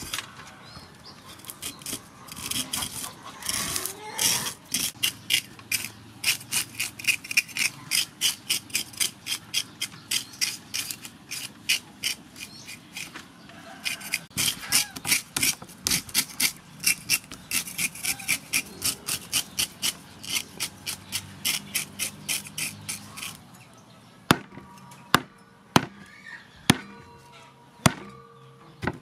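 Metal fish scaler raking the scales off a whole fish in quick, even strokes, about two to three a second. Near the end the scraping stops and a cleaver chops into the fish on a wooden chopping block, about five sharp blows.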